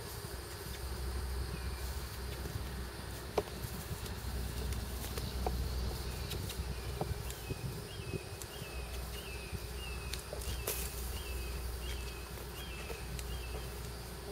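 Outdoor ambience with a steady low rumble and a few soft knocks. From about six seconds in, a small creature, a bird or an insect, gives a series of short high chirps, about two a second.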